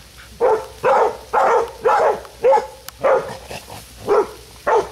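Young hog-dog puppies barking steadily, about two barks a second, baying a hog.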